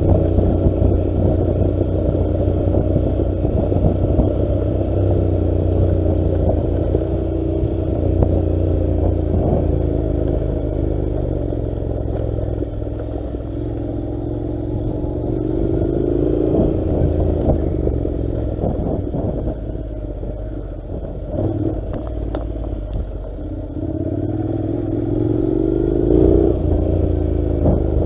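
Honda NC700's parallel-twin engine running as the motorcycle rides a gravel track, with a low rumble and scattered clatter from the tyres and bike on the rough surface. The engine note climbs twice as it accelerates, once around the middle and again near the end.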